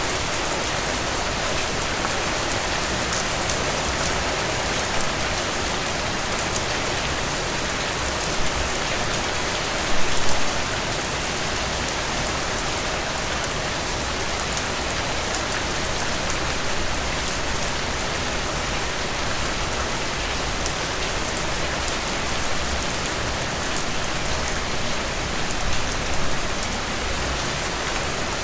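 Heavy rain falling steadily, with individual drips and drops spattering on surfaces. A few drops land louder than the rest, the most prominent about ten seconds in.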